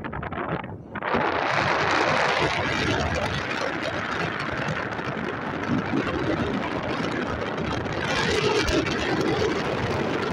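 Wind rushing over the camera's microphone in paragliding flight, a steady loud rush that sets in about a second in.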